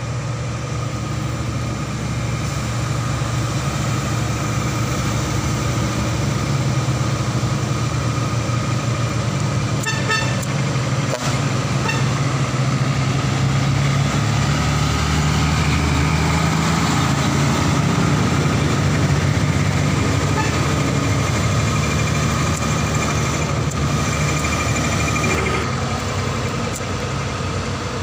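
Heavy diesel trucks, a Mitsubishi Fuso among them, running past in a steady drone that builds to its loudest in the middle as the nearest truck passes and eases off near the end. A short burst of horn toots sounds about ten seconds in.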